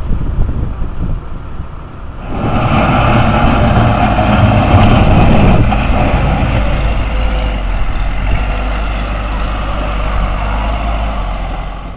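Wind buffeting the microphone for about two seconds, then a backhoe loader's diesel engine running steadily as the machine scrapes and lifts dirt off a road.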